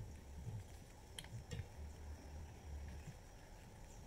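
Faint handling noise: irregular low bumps and a sharp light click about a second in, as hands move an angle grinder in its sliding stand. The grinder is switched off, with no motor running.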